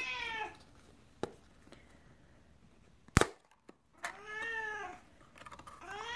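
Siamese cats meowing for food: one meow at the start, another about four seconds in, and a third beginning at the end, each rising and then falling in pitch. A sharp click comes about three seconds in.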